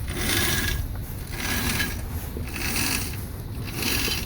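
A halyard being hauled up through its block in about four strokes, roughly one a second, each a rough ratcheting rub of line on the sheave: the gennaker, still in its sock, going up the mast.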